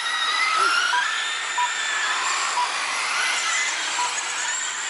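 Radio-controlled super late model race cars whining around a dirt oval, the pitch of their motors gliding up and down as they accelerate out of and ease into the turns. Short beeps sound now and then over the whine.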